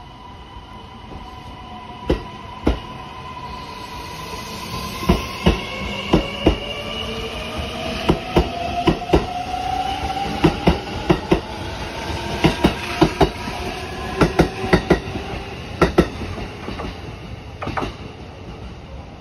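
Kintetsu 80000 series Hinotori electric limited express accelerating away from a standstill: the traction motors whine in several tones that slowly rise in pitch, and the wheels clack over rail joints in pairs, faster and faster, until the last cars pass near the end.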